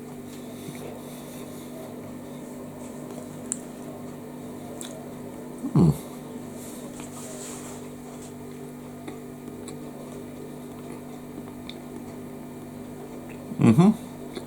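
Someone chewing a soft steamed bao bun, with faint mouth noises over a steady low hum, broken by two short loud voice sounds about six seconds in and near the end.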